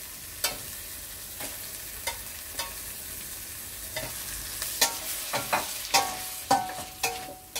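Masala frying in ghee in a stainless steel kadai, sizzling as raw chicken pieces are added, with the steel spatula clicking and scraping against the pan. A short metallic ring sounds near the end.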